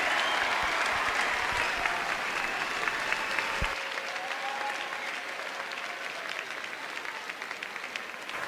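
Audience applauding, fading slowly from start to finish as the clapping dies down.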